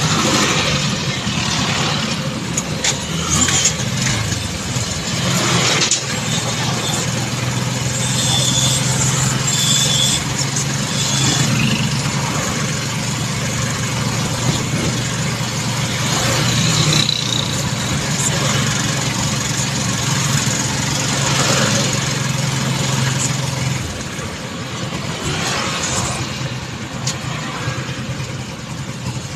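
Engine and road noise of a moving vehicle, heard from on board, with a steady low engine hum through the middle that drops away a little after 24 seconds.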